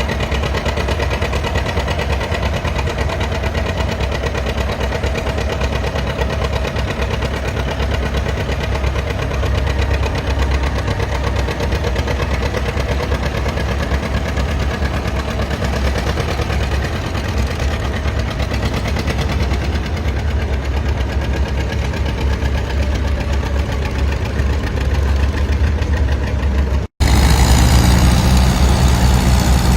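Antique farm tractor engine running steadily. About 27 seconds in the sound cuts abruptly to another, louder engine running.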